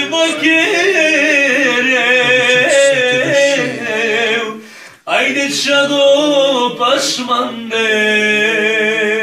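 Men singing a worship song unaccompanied, in long, wavering held phrases, with a brief break about five seconds in before the singing resumes.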